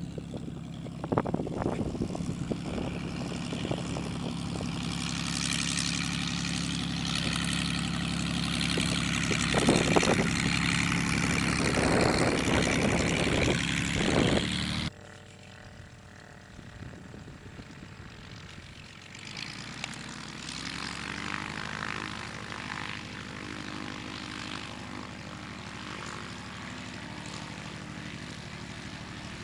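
Cessna 150/152 light aircraft's four-cylinder piston engine and propeller running with a steady drone, growing louder. About halfway through it cuts abruptly to a quieter, steady engine sound.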